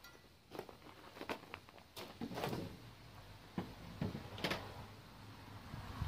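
Several separate clicks and light knocks, irregularly spaced, like tools or parts being handled, over a faint steady low hum.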